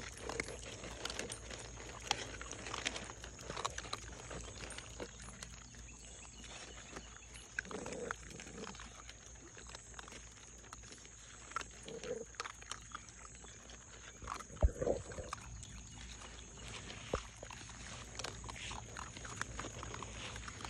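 Several puppies eating from their food together: scattered chewing clicks and snuffling, with a few short grunts and one sharper knock near the end.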